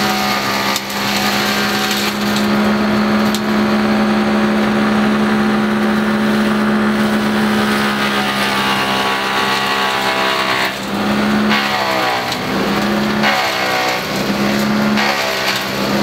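Zakandra drum wood chipper's engine running at steady high speed, its pitch dipping and recovering several times in the last few seconds as branches are fed into it and load the drum.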